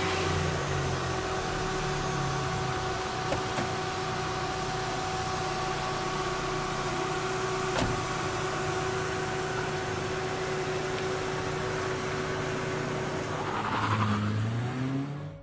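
Car engine running with street noise, a steady hum; near the end the engine's pitch rises, then the sound cuts off suddenly.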